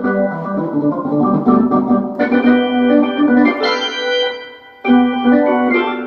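Roland D-50 digital synthesizer playing sustained chords on a factory preset patch. The chord changes about two seconds in, dies away a little after four seconds, and a new chord comes in just before five seconds.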